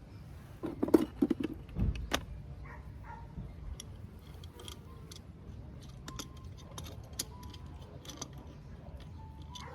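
A quick run of clinks and knocks, like metal objects handled, loudest in a cluster about a second in, then scattered light ticks.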